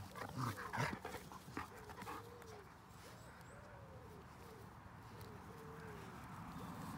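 Two puppies, a young German Shepherd and a small tan dog, play-fighting: loud short play noises in the first second, then a run of short, repeated whines.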